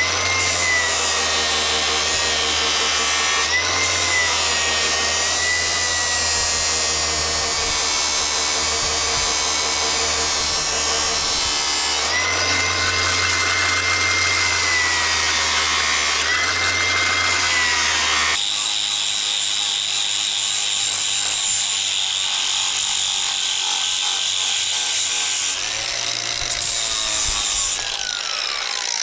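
Angle grinder running at full speed and grinding steel drum-mulcher teeth to sharpen them, its whine dipping each time the disc bites and rising again as it is eased off. About two-thirds of the way through the tone changes to a higher whine, and near the end a falling whine is heard as the grinder winds down.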